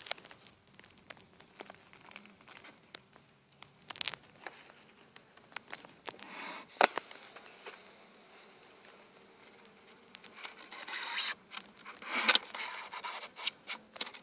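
Scrapes, clicks and knocks of a metal hive tool prying and scraping at the wooden frames of an open beehive. Scattered sharp knocks, the loudest about seven seconds in, then a denser run of scraping from about ten to thirteen seconds in.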